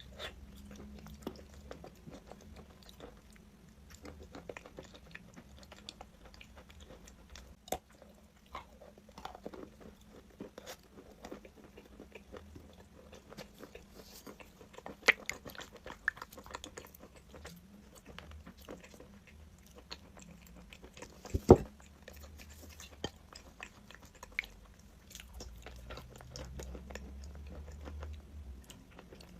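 A person biting and chewing crunchy chalk close to the microphone: a steady run of short, sharp crunches, the loudest one a little over two-thirds of the way through.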